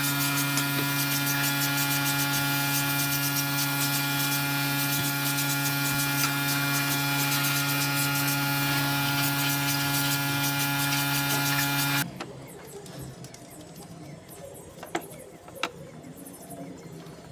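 A steady machine hum with hiss over it that cuts off suddenly about twelve seconds in, followed by a few light clicks.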